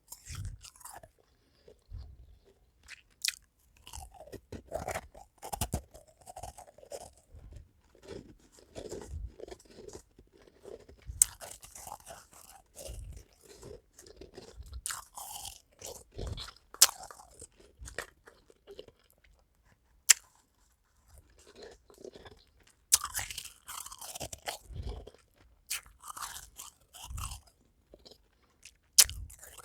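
Person biting and chewing powdery half-moon ice cubes: sharp cracking bites, a few much louder than the rest, between stretches of crunchy chewing.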